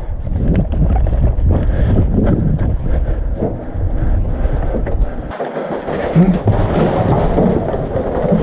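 Wind buffeting the microphone with a heavy, uneven rumble, along with rustling and scattered sharp clicks. The rumble drops out briefly about five seconds in.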